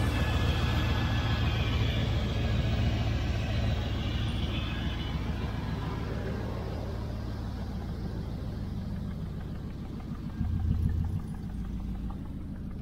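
LS V8 engine idling steadily, with a brief rise in level about ten and a half seconds in.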